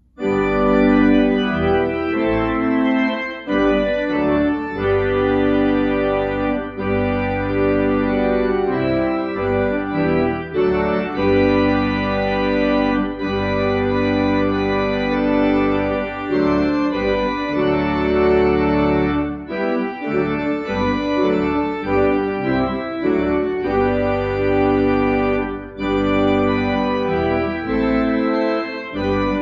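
Church organ playing a slow piece of sustained, held chords, coming in suddenly after silence.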